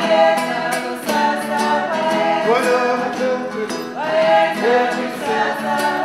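Several voices singing together in harmony, short repeated phrases with each note sliding up into place, over light percussion ticks.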